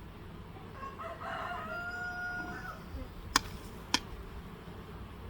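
A rooster crowing once, starting about a second in and lasting nearly two seconds. Two sharp clicks follow a little later.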